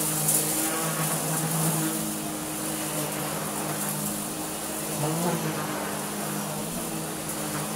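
Miele canister vacuum cleaner running with an EB01 electric powerhead fitted: a steady motor hum with several held tones under a strong high hiss of rushing air.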